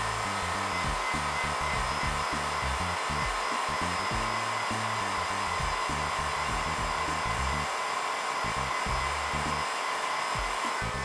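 Black & Decker heat gun running steadily, blowing hot air onto a phone's cracked front glass to heat it for removal: a constant rushing hiss with a steady whine. It cuts off at the end.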